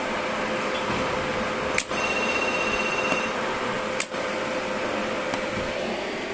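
Weiro SuperTIG-315EX inverter TIG welder running, its cooling fan making a steady hum. Two brief sharp clicks come about two seconds apart, nearly two and four seconds in.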